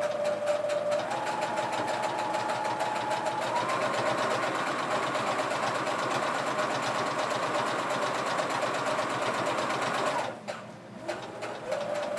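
Electric sewing machine stitching fast and steadily. Its motor whine steps up in pitch twice as it speeds up. It stops about ten seconds in, then starts again just before the end.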